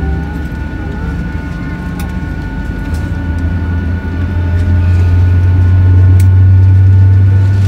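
Boeing 737's CFM56-7B turbofan engines heard from the cabin over the wing, running with a deep hum and a steady high whine, growing louder from about three seconds in as they spool up.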